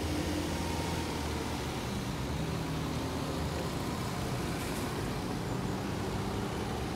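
Cars driving over a railway level crossing: a steady wash of engine and tyre noise.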